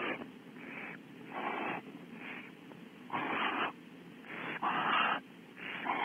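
Barn owls in the nest cavity giving rasping, hissing snore calls, the food-begging call of hungry barn owls, in short bursts about once a second.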